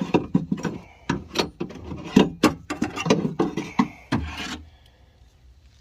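Rapid knocking and scraping, hard parts rattling and rubbing against each other for about four and a half seconds, then stopping: the 2000 Toyota Camry's old, broken window regulator being worked loose inside the door.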